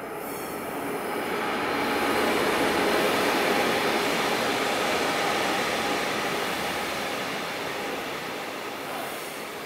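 A train passing on the rails: its running noise builds over the first two seconds, holds, then slowly fades away.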